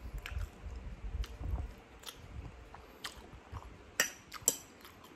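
Close-up chewing of a mouthful of spaghetti in meat sauce, then a metal fork clinking twice against the plate about four seconds in.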